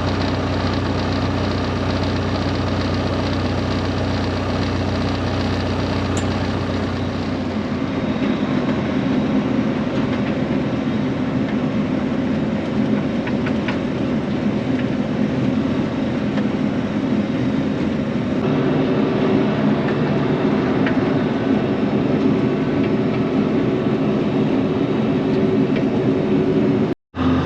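Vehicle engine running steadily with a low hum; the sound shifts abruptly about seven and eighteen seconds in, and drops out for a moment near the end.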